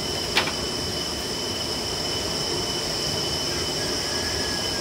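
Steady high-pitched drone of forest insects, two held tones over a hissing bed, with a single click about half a second in.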